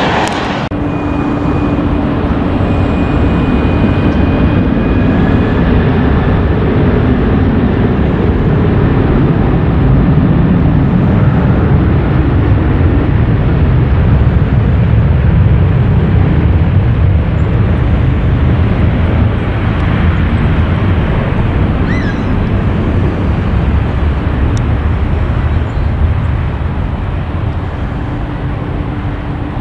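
Jet noise from a twin-engine airliner on final approach: a steady rush with deep rumble that swells toward the middle and slowly eases off.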